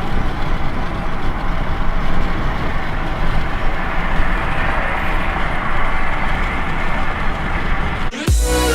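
Steady rushing outdoor noise with a deep rumble, of the kind that wind on the microphone or passing traffic makes, cut off abruptly near the end by electronic music with a heavy beat.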